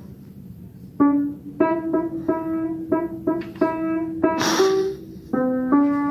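Upright piano played slowly, a simple melody of single notes starting about a second in, roughly two notes a second, each ringing on into the next. A brief hiss cuts in about midway.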